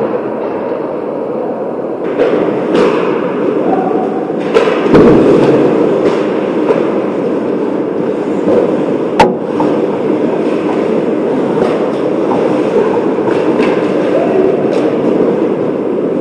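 Ice hockey play on an indoor rink: continuous scraping of skate blades on ice, with scattered knocks of sticks and puck and one sharp crack about nine seconds in.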